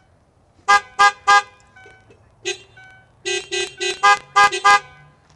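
A car horn honked in short blasts by a person pressing the steering-wheel horn pad with his backside: three quick honks, a single softer one, then a rapid run of six.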